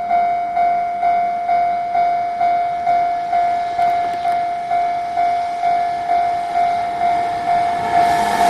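Japanese level-crossing warning bell ringing in an even, fast beat of a little over two strokes a second, each stroke a single tone that fades. Near the end the noise of the approaching freight train begins to rise over it.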